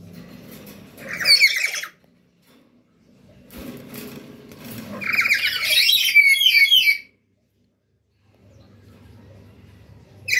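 Lory screeching in harsh, shrill squawks: a short burst about a second in, then a longer run of calls from about five to seven seconds. A faint low rustle runs between the calls.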